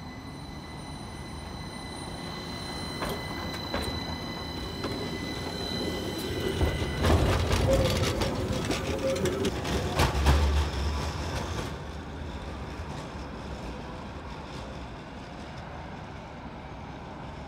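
AnsaldoBreda Sirio low-floor tram moving off and passing close by. A steady high electrical whine comes first, then the wheels knock over the track with a low rumble, loudest from about seven to eleven seconds in, and the sound fades as the tram draws away.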